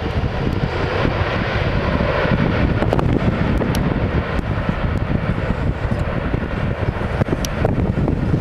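Strong gale-force wind buffeting the microphone, a loud steady rumble with a few faint ticks.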